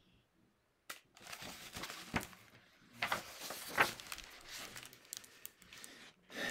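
Paper rustling and crinkling with sharp crackles as a large picture book is handled and its pages are turned, starting about a second in and stopping just before the end.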